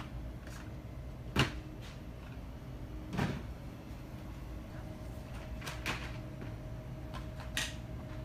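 Steady low background hum of a shop floor, broken by four short, sharp knocks or clacks, the loudest about a second and a half in; a faint steady tone comes in about halfway through.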